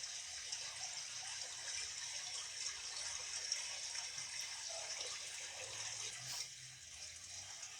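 Steady hiss of running water, like a tap left running, with no clear breaks.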